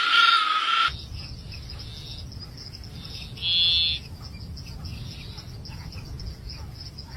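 Insects chirping over a low rumble, with a louder short trill about three and a half seconds in. A louder sound carrying a steady high tone cuts off suddenly about a second in.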